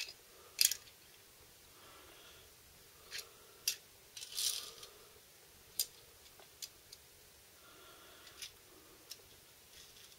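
Small die-cast toy cars being picked up and set down on a hard floor: scattered sharp clicks and taps, with a short scraping rustle about four and a half seconds in.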